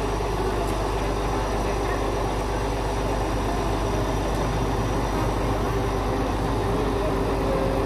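A crane lorry's diesel engine idling steadily: a low hum with a faint steady whine above it.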